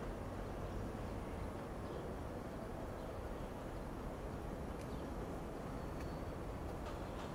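Distant New York subway train rolling slowly around a curve on elevated track, a steady low rumble with a couple of faint clicks near the end.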